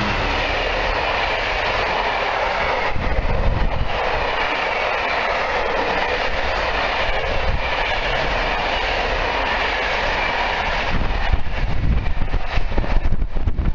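Freight train passing close by, a Colas Rail Class 66 diesel locomotive with empty timber wagons: a loud, steady rumble of wheels running on the rails as the wagons roll past. From about eleven seconds in the noise turns gustier and more uneven.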